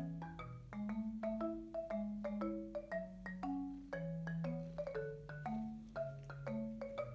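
Background music: a light, bouncy tune of marimba-like mallet notes over a bass line, with a steady beat.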